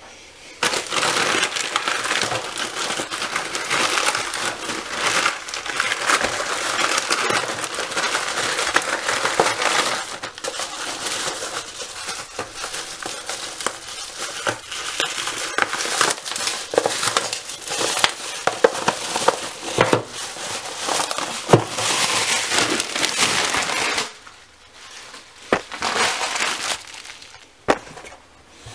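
Plastic courier mailer and bubble wrap being torn open and handled: loud, continuous crinkling and rustling. Near the end it drops away to a few light knocks as cardboard boxes are set down on the table.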